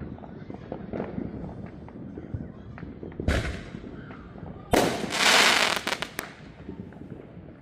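Neighbourhood fireworks: a steady scatter of distant pops and crackles, a loud bang a little after three seconds, then a sharp report near the middle followed by about a second and a half of loud crackling.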